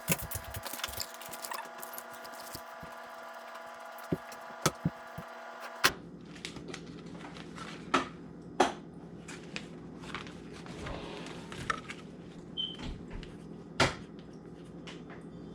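A steady hum of several tones for about six seconds that cuts off suddenly, followed by scattered light knocks and clicks of kitchen items being handled, such as cupboard doors and containers.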